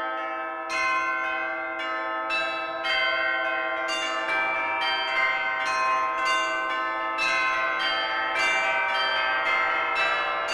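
Bells ringing in a steady run of struck notes, a new one every half second or so, each ringing on and overlapping the next.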